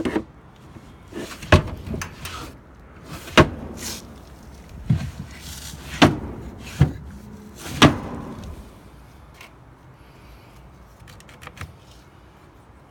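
A series of sharp knocks and bangs: about five loud ones spread over the first eight seconds, then a few faint clicks near the end.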